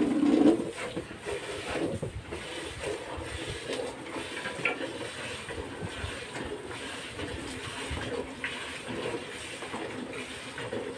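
Milk squirting from a cow's teats into a metal pail during hand milking, a steady run of spurts. There is a brief louder noise right at the start.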